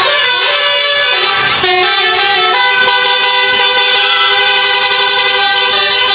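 Bus telolet basuri musical air horn playing a tune, several horn tones sounding together. It runs through a few quick note changes, then holds a long chord from about two and a half seconds in. A brief low rumble comes about a second and a half in.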